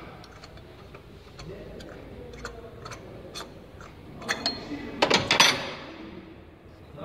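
Scattered clicks and light knocks of hands and tools handling the engine's ignition parts and plastic covers, with a louder flurry of clicks about four to five and a half seconds in.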